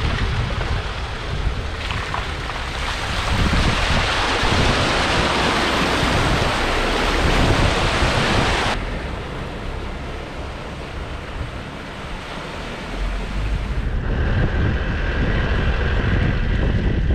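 Wind buffeting the microphone over a vehicle's low rumble. A loud rushing hiss swells a few seconds in and cuts off suddenly about nine seconds in. Near the end the rumble gets heavier, with a faint steady whine.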